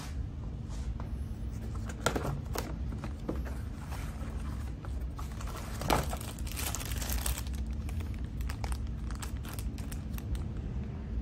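Crinkling and rustling of paper and a thin plastic toy bag as hands pull them out of a cardboard Happy Meal box, in irregular crackles, the loudest about six seconds in and another dense run near the end.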